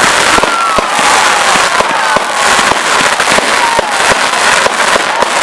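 Firework display going off: a dense run of rapid bangs and crackling, with several whistles that slide slowly down in pitch through the middle.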